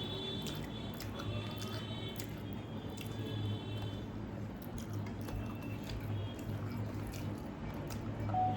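Wet squishing and chewing of someone eating panta bhat, rice soaked in water, with scattered small clicks over a steady low hum.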